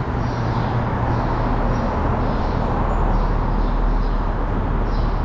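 Steady city street noise: a constant hum of traffic.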